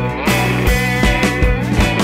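Background rock music with sustained guitar and bass notes over a steady drum beat.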